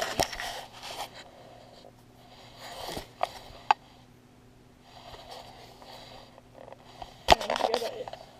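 A kitten rubbing and pawing against a GoPro camera, its fur scraping and rustling on the housing and on a fleece blanket. There are a few light clicks, then a sharp knock about seven seconds in as the camera is bumped.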